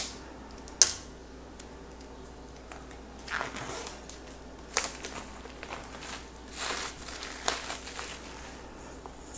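Clear plastic shrink wrap being cut and peeled off a hardcover book: the thin film crinkles and tears in several short spells. A sharp click comes just under a second in.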